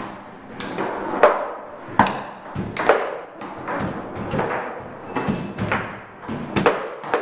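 Table football game in play: a dozen or so irregular hard clacks and knocks as the plastic figures strike the ball and the rods bang against the table, with a noisy rattle between the hits.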